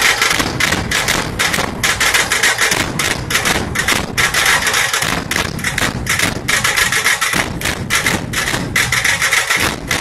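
Dhol-tasha drum ensemble playing loud, fast, continuous rhythmic drumming.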